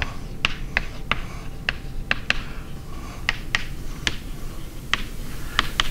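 A string of short, sharp taps or clicks at an uneven pace, about fifteen in six seconds.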